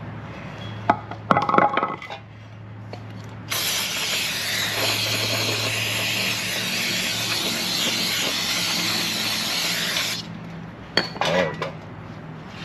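A few light metal clinks, then a steady spray hiss lasting about six and a half seconds, then more clinks near the end, while an oil-soaked flywheel is being cleaned.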